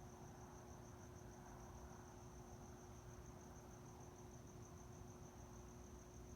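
Faint, steady cricket chirping: a continuous high, rapidly pulsing trill, over a low steady hum.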